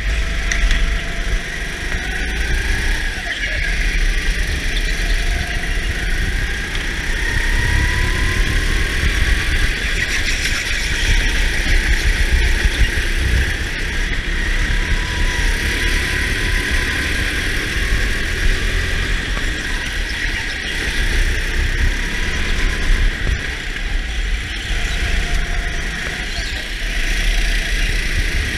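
A racing kart driven flat out on an indoor track, heard onboard through a helmet camera: the kart's motor running continuously, its pitch rising and falling through the corners, over a heavy low rumble of wind on the microphone.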